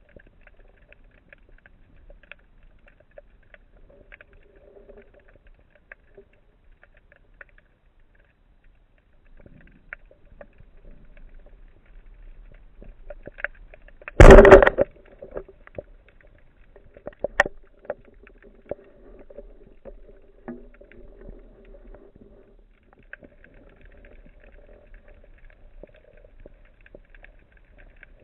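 Underwater, a speargun fires with one short, loud crack about halfway through, followed a few seconds later by a handful of fainter sharp clicks. Faint scattered clicking and a low hum run under it.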